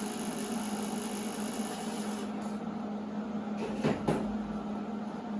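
Electric angle grinder running steadily at speed to cut the end off a steel axle mount, with two short sharp clicks about four seconds in.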